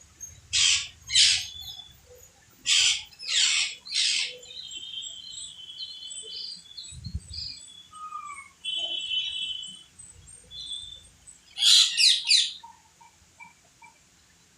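A group of parrots screeching and chattering: two loud harsh screeches early on, three more a couple of seconds later, and a quick run of four near the end, with softer whistled chirps and chatter in between.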